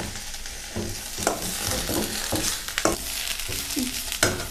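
Thuduvalai and musumusukkai leaves sizzling in hot coconut oil in a kadai, stirred with repeated scrapes of the utensil against the pan as they wilt down.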